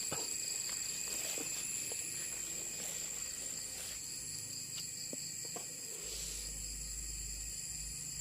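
Night insects chirring in a steady, high-pitched drone on two pitches, with a few faint clicks.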